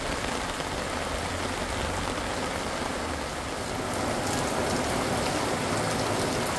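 Heavy rain falling steadily as an even hiss, a little louder about four seconds in.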